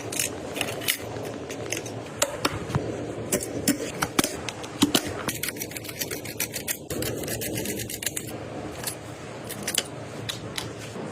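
Computer parts being handled during a PC build: a steady scatter of sharp plastic and metal clicks and taps over rubbing and scraping, with a quick run of clicks a little past the middle.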